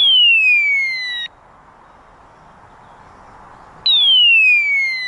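Electronic hunting-dog beeper collar sounding its point-mode alert twice, about four seconds apart: each beep is a loud falling electronic tone lasting about a second and a half. The beeper sounds because it has stayed still for ten seconds, the signal that the dog is standing on point.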